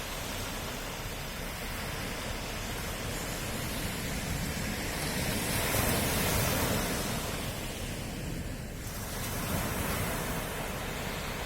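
Sea waves breaking and washing ashore: a steady rush of surf that swells to a peak about halfway through, eases off, and builds again near the end.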